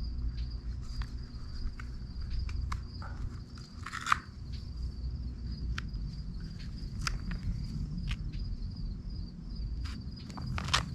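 Crickets trilling steadily and high-pitched, with scattered light clicks and rustles of handling. A sharper snap comes about four seconds in and another near the end.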